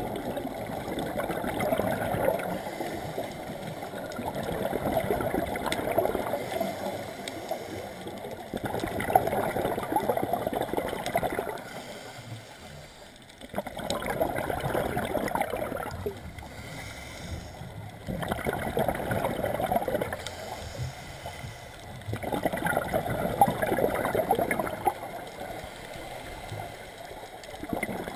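Scuba regulator exhaust bubbles from a diver breathing underwater: bubbly, gurgling bursts of a few seconds each on every exhalation, about every four seconds, with quieter gaps for each inhalation.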